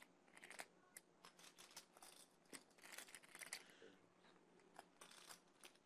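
Faint, irregular clicking of poker chips being handled and riffled at the table.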